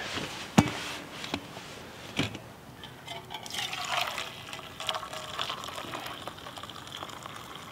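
Fish-head broth being poured from a blackened camp pot into a small metal cup: a steady splashing pour, filling the cup from about three seconds in. A sharp knock about half a second in is the loudest sound.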